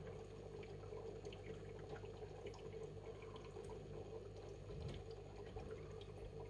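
Aquarium water circulating: faint trickling and dripping over a steady low hum.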